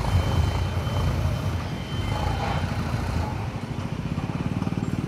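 A vehicle engine running slowly with an even low pulse. A thin, steady high tone sounds briefly twice.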